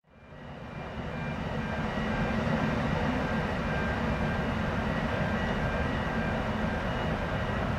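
Steady low rumble of a large passenger ferry's engines and machinery as it moves through the harbour, fading in from silence right at the start.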